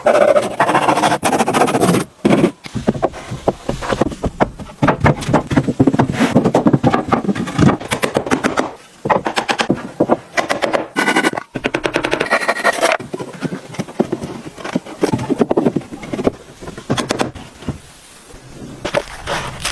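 Rapid, irregular series of sharp knocks and clicks, packed closely together with a few brief pauses.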